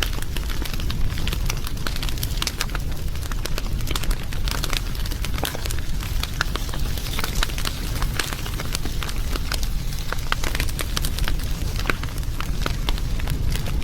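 Wood fire crackling: frequent sharp pops and snaps at irregular intervals over a steady low rumble of burning.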